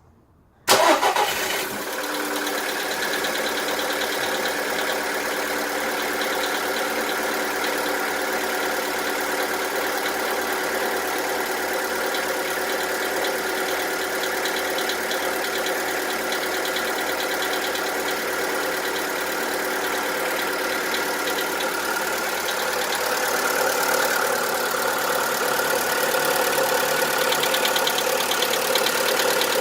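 VW Polo 1.4 16V BUD four-cylinder petrol engine starting about a second in and then idling with a steady diesel-like knock, a little louder near the end. The knock is piston slap: the piston skirts rocking against the cylinder walls.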